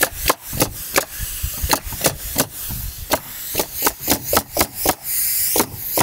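Pneumatic coil roofing nailer firing in quick succession, about four shots a second, driving ring-shank nails through tin caps to fasten 30 lb felt to the roof deck.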